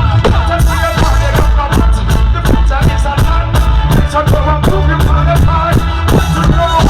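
A live reggae band playing loudly, with a heavy bassline and a steady drum beat.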